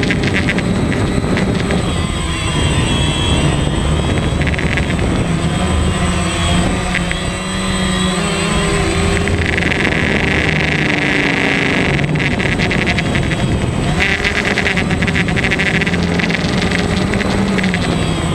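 DJI Phantom quadcopter's electric motors and propellers buzzing loud and close, heard through the GoPro mounted on the drone. The pitch shifts as the drone manoeuvres, and a higher whine comes in twice in the second half.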